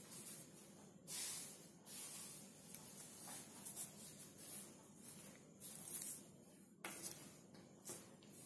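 Faint rustling and scraping of paper as hands pick up and handle small paper flowers on a newspaper-covered table, with a couple of light clicks near the end.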